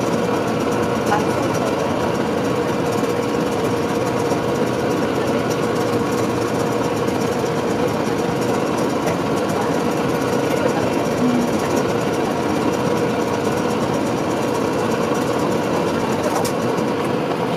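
Onboard machinery of a stationary Kōchi tram running: a steady mechanical hum with a fast, even rattle. There is no wheel-on-rail noise.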